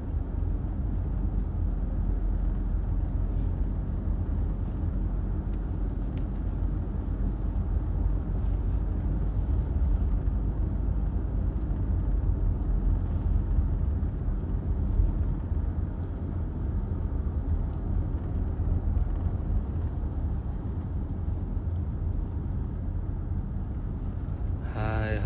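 Steady low rumble of road and engine noise heard inside a moving car's cabin, with a few faint knocks along the way.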